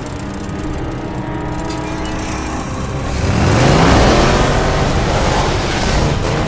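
Car engine running steadily, then revving up with a rising pitch about three seconds in, as a loud rushing noise swells around it.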